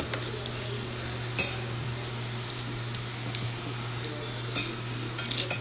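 Utensils clinking against dishes at the table: a handful of sharp, scattered clinks, the loudest about a second and a half in, over a steady low hum.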